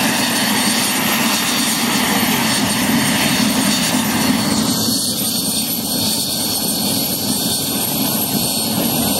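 Mi-2 helicopter's twin turboshaft engines running on the ground with the main rotor turning: a steady, loud turbine whine over the rotor and engine noise.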